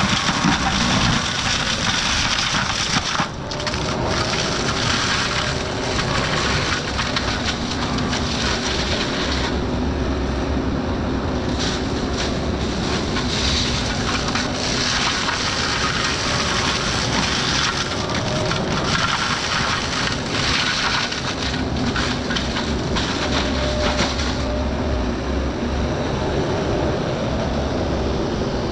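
Excavator's diesel engine running under load while its forestry mulcher head shreds brush and wood, a steady loud grinding din whose upper hiss swells and eases as the head bites into material.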